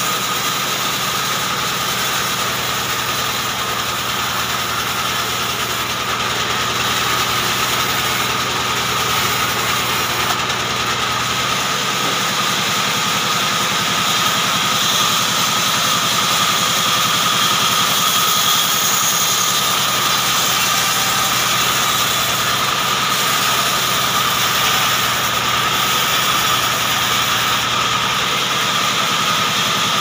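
Large vertical band saw running steadily with a constant high whine while a short hardwood log is fed through the blade and sawn into slabs.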